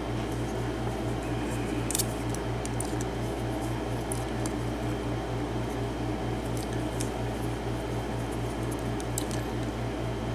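A steady low hum that pulses evenly, with a scattering of faint light clicks of small metal lock-cylinder parts being handled.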